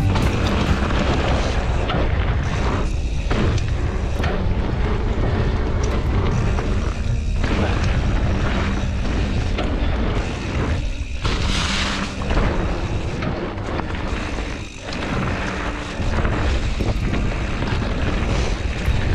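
Wind buffeting the microphone and tyre-and-trail rumble from a mountain bike descending a dirt singletrack, with background music. The noise is loud and steady, easing briefly a few times, with a short sharper hiss about two-thirds through.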